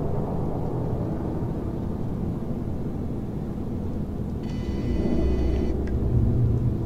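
A steady, low rumbling drone from a film's sound design. About four and a half seconds in, a high electronic whine sounds for about a second and a half, and the rumble swells louder.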